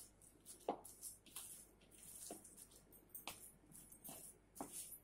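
Faint, irregular squishes of a hand mashing and kneading a soaked broken-wheat (dalia) vada mixture in a plastic bowl, about six soft squelches in all.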